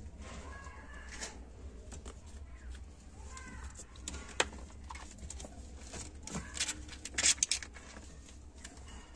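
Month-old kittens mewing faintly in short, high calls, with sharp clicks and knocks as they scramble among the shoes. The loudest is a cluster of clicks about seven seconds in.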